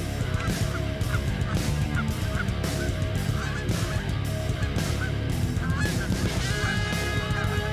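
Canada geese honking: a steady run of short honks that rise and fall in pitch, growing thicker and overlapping near the end as the flock comes in.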